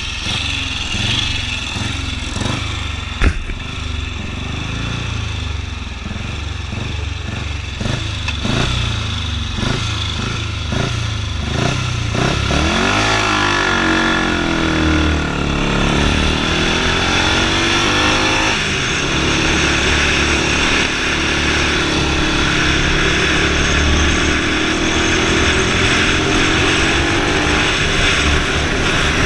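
Yamaha WR450F supermoto's single-cylinder four-stroke engine, blipped repeatedly at idle, then revved up and held high. About eighteen seconds in it changes suddenly, as on a launch, and it runs on under steady load, accelerating.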